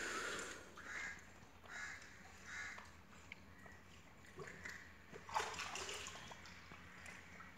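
Faint water splashing and sloshing in short bursts about a second apart as a puppy paddles in a water tank.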